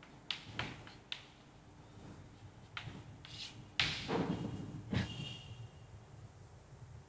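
Chalk tapping and scraping on a chalkboard as a word is written and underlined: a few sharp taps in the first second, then longer strokes, the loudest about four seconds in, and one more knock about five seconds in.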